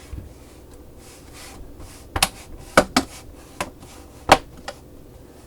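Plastic laptop case panel pressed down by hand, its clips snapping into place in a handful of sharp clicks, the loudest near the end.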